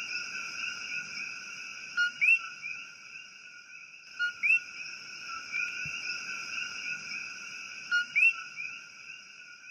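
Chorus of coquí frogs: a steady high trilling bed with about three distinct two-note calls, a short low note then a rising higher one.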